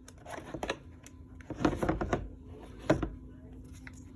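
Clicks and knocks from handling a cordless electric ratchet and its 12-volt battery pack, with a cluster of clatter about one and a half seconds in and a sharp click about three seconds in. A faint steady hum sits underneath.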